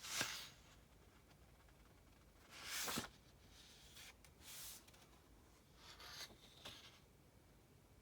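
Paper rustling from a book being handled and its pages turned: four short dry swishes, the loudest about three seconds in.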